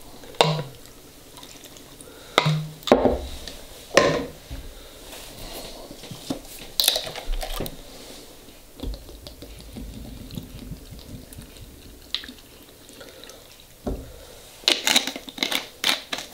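Distilled white vinegar poured from a plastic bottle into glass mason jars packed with shredded cabbage, a low steady trickle, broken by several sharp clinks and knocks of glass and bottle, with a cluster of them a few seconds in and again near the end.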